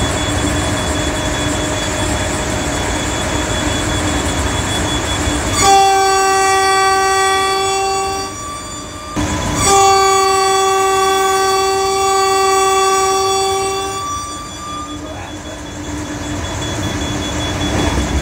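Intercity express train's horn sounding twice, heard from the driver's cab: a blast of about two and a half seconds, a short break, then a longer blast of about four seconds. The train's steady running noise continues before and after.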